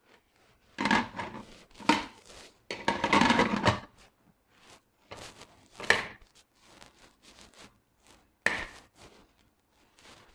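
Stainless-steel pressure cooker lid being fitted onto the pot and twisted shut: metal scrapes and clanks of lid against rim and handles. The longest scrape comes about three seconds in, with sharp clanks near six and eight and a half seconds.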